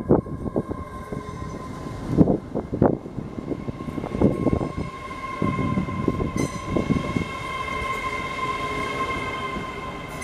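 LNER Azuma train at the platform: a steady high whine runs throughout, over irregular low clattering knocks that ease off after about seven seconds into a steadier rumble.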